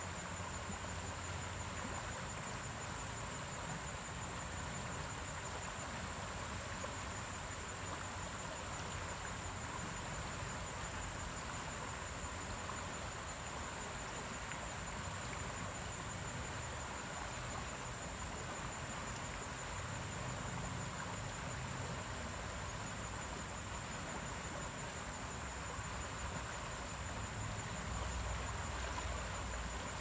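River water flowing steadily over a rippled, shallow stretch, an even rush, with a steady high-pitched insect chorus above it.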